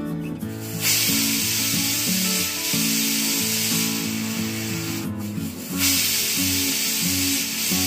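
Indian pressure cooker whistling: steam hisses out loudly under the lifted weight valve, two whistles with a short break about five seconds in. These are the whistles counted to time the cooking of soaked chickpeas. Background music plays underneath.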